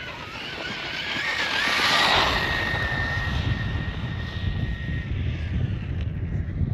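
High-pitched whine of an electric RC truck's brushless motor and drivetrain as it drives past, loudest about two seconds in, then holding a steady tone and fading out about five seconds in. Wind rumbles on the microphone under it in the second half.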